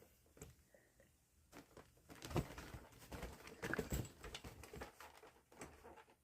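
Irregular light knocks, taps and scrapes, busiest in the middle: a cat clambering about on an electric fan.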